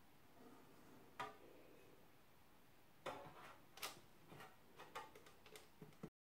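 Faint, scattered light clicks and taps from handling soaked ladyfingers, a milk bowl and a paper-lined metal loaf tin, several in a row from about halfway on. The sound cuts off abruptly near the end.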